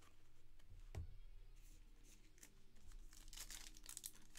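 Foil trading-card pack being torn open and crinkled by hand, faint, with the crackling thickening from about three seconds in. A soft knock about a second in.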